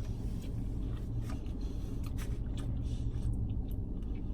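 Steady low hum of a car's interior, with a few faint clicks and smacks of someone eating.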